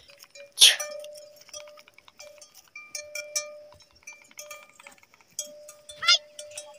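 Bells on grazing ponies clinking and ringing as the animals move. The ringing tone comes and goes, over light clinks. There is a short sharp burst of noise about half a second in and a brief falling squeal near the end.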